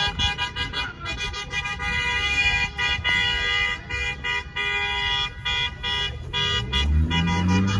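Car horns honking over and over in short, overlapping blasts.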